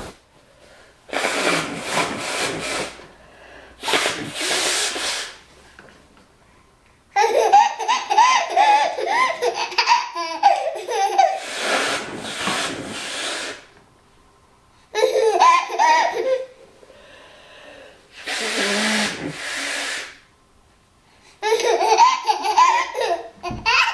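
A woman blowing her nose hard into a tissue, four long honking blows. Between the blows a baby answers with startled, wavering outbursts, turning to laughter near the end.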